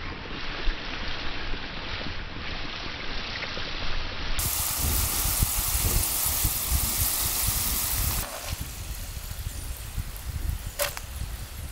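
Fresh-cut potato fries sizzling steadily in hot vegetable oil, with low wind rumble on the microphone.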